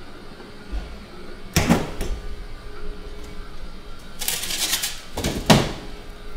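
Ultra-low −80 °C chest freezer being opened and handled: a sharp knock about a second and a half in, then a rustling, scraping stretch as the insulated inner lid panels are slid and lifted, and a second sharp knock near the end.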